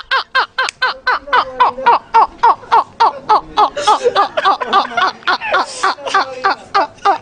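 Men laughing hard and long: a rapid, steady run of ha-ha-ha pulses, about five a second, with a few breathy gasps mixed in.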